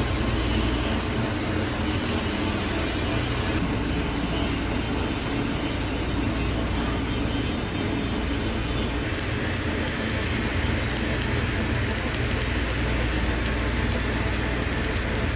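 Stick (shielded metal arc) welding arc crackling and hissing steadily as a stringer bead is run on a T-joint fillet weld. The arc strikes up abruptly at the start.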